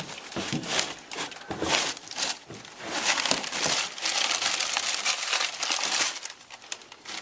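Irregular crinkling and crunching of model railroad layout scenery being pulled apart and broken up by hand, loudest and most continuous in the middle stretch.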